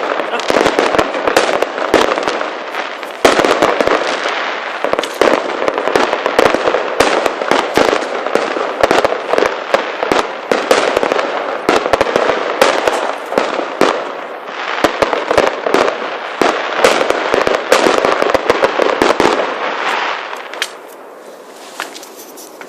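Fireworks going off in a dense barrage: many rapid pops and bangs over a continuous crackle, dying down about twenty seconds in.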